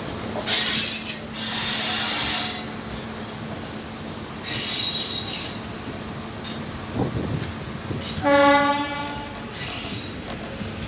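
An Indian Railways WAG-9HC electric locomotive's horn sounding one blast of about a second, some eight seconds in, heard from the train's ICF coach. Under it run the coach's running noise and several short bursts of high-pitched squeal from the wheels, the first about half a second in.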